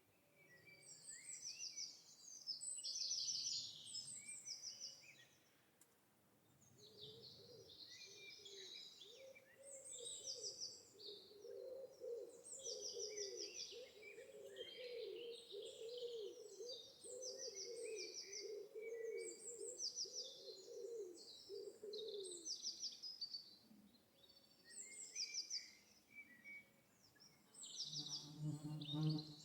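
Birds chirping and trilling, with a lower wavering call underneath for about fifteen seconds in the middle. A brief low hum comes in right at the end.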